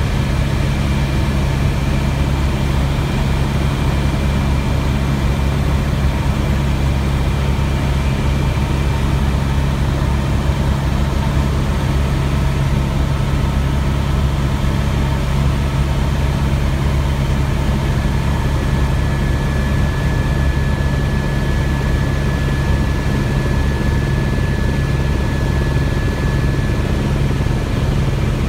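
Helicopter in steady flight, heard from inside the cabin: a constant low drone from the rotor and engine, with faint thin whining tones above it.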